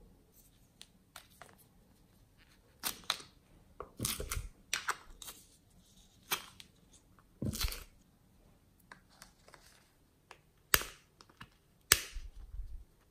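Small plastic pots of clay being handled and opened: irregular sharp clicks and snaps of the plastic lids, with quieter plastic rustling between them.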